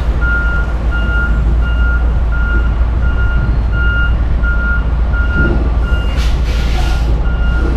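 Truck's backup alarm beeping steadily, about two beeps a second, over the rumble of the running engine. About six seconds in comes a short hiss of air.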